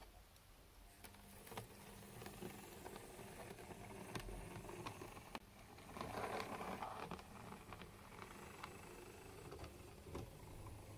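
OO gauge model locomotive running along the track: the small electric motor hums and the wheels click over the rail joints, growing louder to a peak about six seconds in as it passes.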